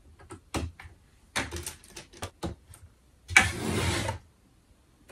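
Small clicks and taps of plastic doll-furniture parts being handled, then a short loud rustle of a clear plastic bag about three and a half seconds in.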